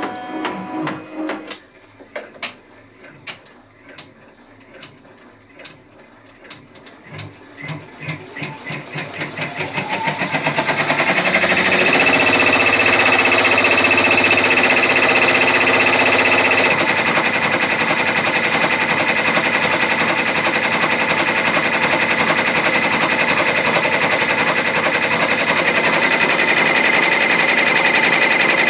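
A Brother Entrepreneur Pro X (PR1055X) 10-needle embroidery machine starting to stitch. A few sparse clicks come first, then the stitching speeds up between about 8 and 11 seconds in and settles into a fast, steady, even clatter.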